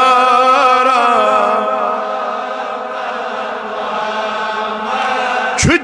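A man's voice singing a naat, a devotional poem in praise of the Prophet, drawing out one long held note that stays nearly level in pitch and breaks off sharply just before the end.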